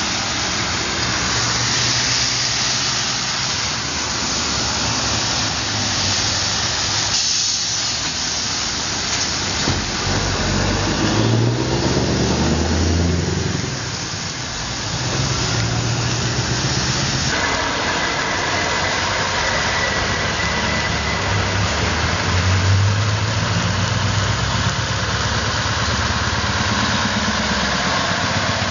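Heavy trucks driving past one after another, their diesel engines running with a pitch that rises and falls as each goes by, over a constant hiss of tyres on a wet road.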